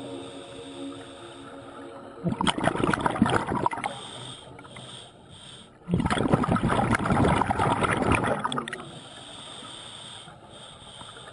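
Scuba diver breathing through a regulator underwater: two long rushes of exhaled bubbles, each about two seconds, with quieter stretches of breathing in between.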